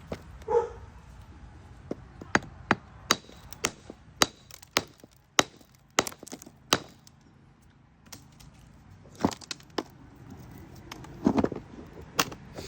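Hammer knocking on stone: a run of sharp, separate knocks, about two a second, then a short pause and a few more knocks near the end, as bits are knocked off the rock.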